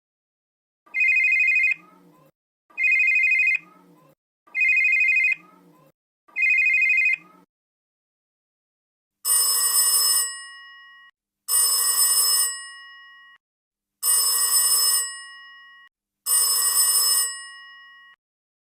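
Old telephone bell ringing sound effects. Four short rings come about two seconds apart, then after a pause a second, fuller ring sounds four times, each ring longer and trailing off with a lingering tone.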